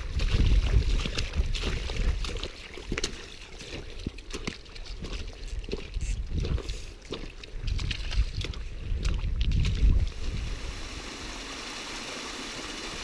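Wind buffeting the microphone, with footsteps clicking and splashing on stones in a shallow mountain stream. About ten seconds in this gives way to the steady rush of a small waterfall.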